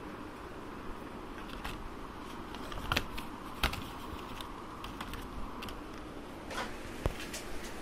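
Clear plastic blister packaging being handled: scattered sharp clicks and light crackles over a steady low hiss, with the loudest clicks about three to four seconds in and again near the end.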